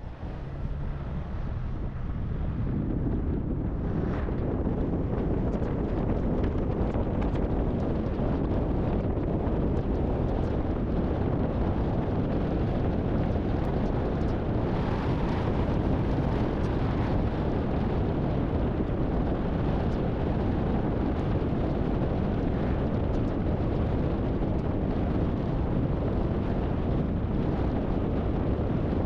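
Strong storm wind rushing and rumbling steadily on the microphone.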